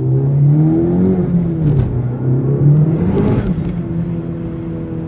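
Honda Civic Type R FK8's turbocharged 2.0-litre four-cylinder engine and exhaust under way, the engine note rising and falling in pitch as it revs, with a brief noisy burst a little past three seconds, then holding a steady pitch near the end.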